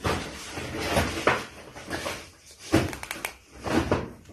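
Rustling and scuffling as a cat bites and kicks at a plush toy, with three louder scuffs.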